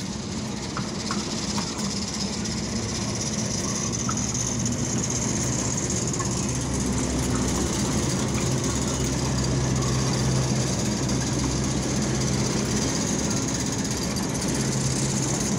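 Diesel shunting locomotive's engine running with a steady low note as the locomotive moves slowly past, growing louder as it draws level about two-thirds of the way through.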